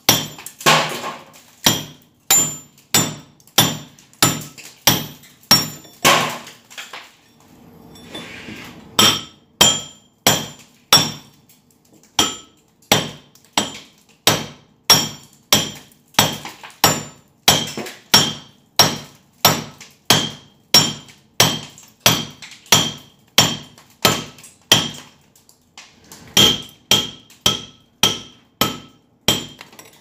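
Hammer striking a steel chisel held against a concrete wall, chipping out a hole: a steady run of sharp metallic blows with a ring, about two a second. The blows pause for a second or two about seven seconds in and briefly again near the end.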